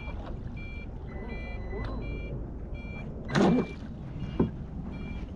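Low-battery alarm on the RC boat's radio system beeping, a series of short, high electronic beeps repeating over and over: the warning that the boat's LiPo packs are running low. A brief voice exclamation about halfway through.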